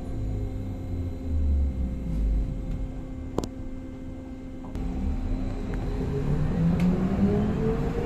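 BKM 321 trolleybus heard from inside: a steady electrical hum over low road rumble, with one sharp click about three and a half seconds in. Near the end the electric traction drive's whine rises in pitch and grows louder as the trolleybus picks up speed.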